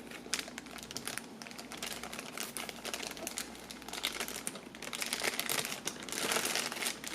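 Packaging crinkling and rustling with many small irregular clicks as a new fishing reel is unwrapped, louder for a moment near the end.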